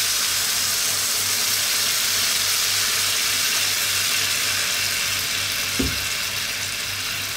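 Water poured into a hot wok of sautéed shrimp, tomato and onion, hissing and sizzling steadily as it comes up to a bubble. The sizzle eases slightly toward the end, with a single soft knock about six seconds in.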